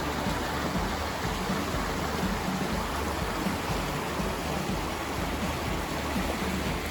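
A small river swollen with snowmelt, rushing steadily over rapids. Its water is running high and silty.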